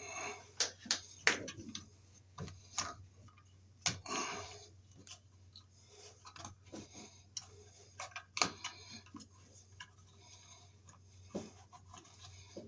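Irregular clicks, taps and knocks of an old work electrical box and its Romex cable being handled as the wire is fed into the box, with some rustling between.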